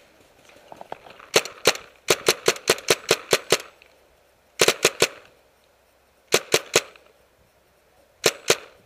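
Tippmann A5 paintball marker firing in strings of sharp shots: a pair, then a run of about eight at roughly five a second, then groups of four, three and two.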